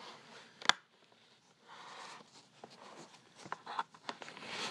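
A single sharp plastic click about a second in, then fainter small clicks and rustling of plastic being handled: the side clip of a Miller Digital Elite welding helmet's front lens holder being pushed back into place against the tension of the bent shell.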